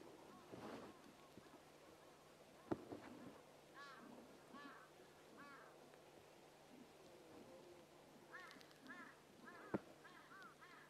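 Faint bird calls: short, clear notes that each rise and fall in pitch, in groups of two to four. Two sharp clicks stand out, one about three seconds in and one near the end.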